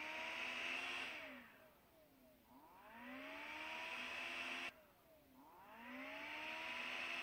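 An engine revving up and back down three times in a row; the second rise is cut off abruptly and the third starts straight after.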